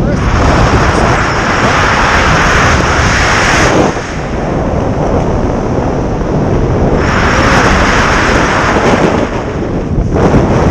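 Airflow rushing over the camera's microphone while gliding under an open tandem parachute canopy: a loud, continuous rush, strongest over the first few seconds and again for a couple of seconds later on.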